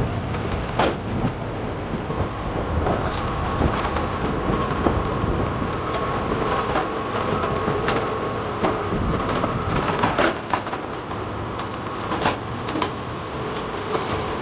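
Firewood-cutting saw machine running: a steady mechanical clatter with scattered sharp knocks, and a steady whine through the first half.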